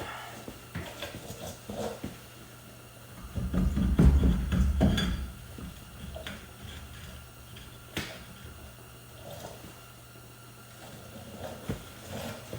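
Scattered knocks and clinks of tools and metal parts while a truck's rear axle is being taken apart, with one louder, deep rumbling bump a few seconds in.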